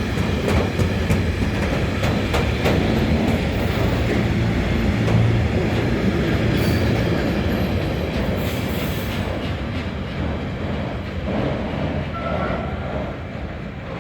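Freight train of Eas open wagons rolling past, a steady rumble with sharp wheel clicks over rail joints in the first few seconds. It fades away from about two-thirds of the way in.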